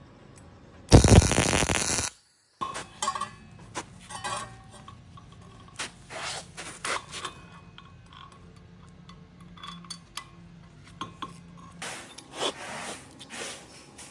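Workshop sounds: a loud, harsh noise burst about a second long near the start, cut off abruptly, followed by scattered light clinks and scrapes of metal parts being handled.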